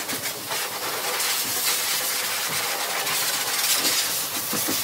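High-velocity pet dryer blowing a steady rushing hiss of air through its hose onto a wet dog's coat, drying it after its bath.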